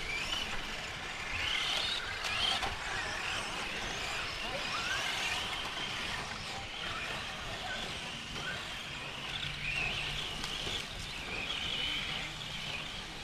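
Radio-controlled model buggies racing on a dirt track: their motors and gears whine, rising and falling in pitch again and again as the cars accelerate and slow through the corners.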